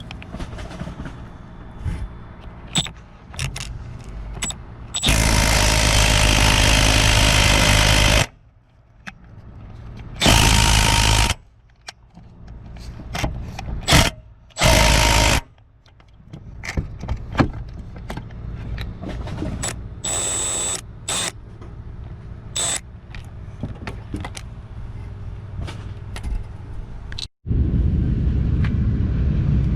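Milwaukee M12 Fuel cordless right angle impact wrench hammering in bursts: one of about three seconds, then several of about a second, with clicks and knocks of metal work on the vehicle in between. Near the end the sound cuts off suddenly and a different steady noise starts.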